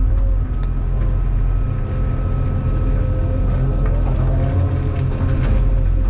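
Cat 390F excavator heard from inside the cab: its Cat C18 diesel engine running steadily under load, with a rising hydraulic whine as the full bucket swings, and a brief clatter near the end as blasted rock starts dropping into the dump truck's bed.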